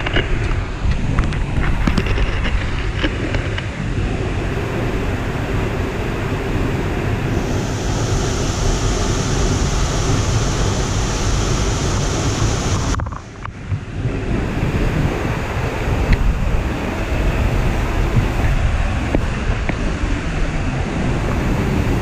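Seljalandsfoss waterfall's steady rush of falling water, with wind buffeting the microphone. The sound dips briefly about halfway through.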